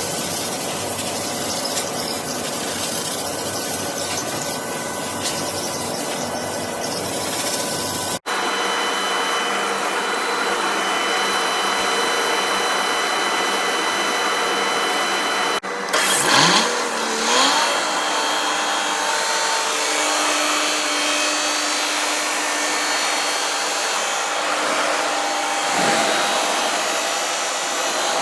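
Industrial generator engine running steadily, in clips cut together, with a brief rise in pitch about 16 seconds in.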